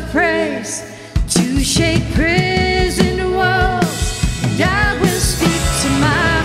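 Contemporary worship song: a woman singing lead over acoustic and electric guitar. The band drops back briefly, then comes back in full about a second in.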